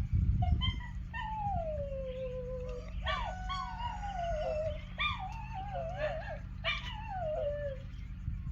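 A dog whining and howling: a series of drawn-out whimpers, each falling in pitch, one about a second in and several more close together in the second half.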